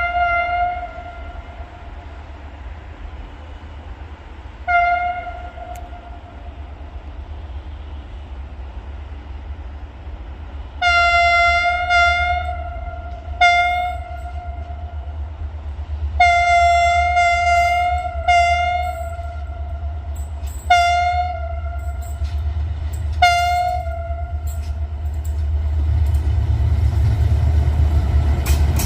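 Diesel locomotive horn sounding about eight times on one steady note, mostly short toots with two longer blasts of about a second and a half, over the train's continuous low rumble. The rumble grows louder near the end as the train draws near.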